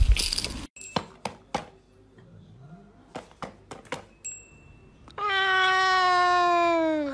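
A cat crunching on a dry treat for the first moment, then a few light taps, then one long cat meow of about two seconds that slowly falls in pitch.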